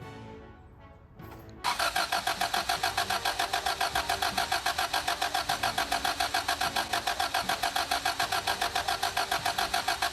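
2003 Toyota Camry engine cranking on the starter without firing, a fast, even pulsing of about six beats a second that begins about a second and a half in; the engine turns over but will not start.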